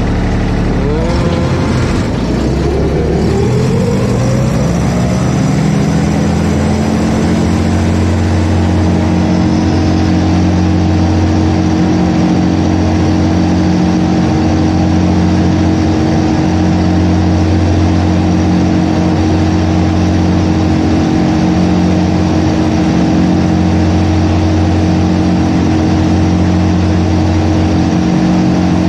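Zero-turn mower's engine throttled up, its pitch rising over the first six seconds or so, then running steadily at high speed.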